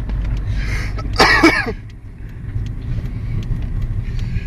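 Low, steady road and engine rumble inside a moving car's cabin, with a brief burst of a person's voice about a second in.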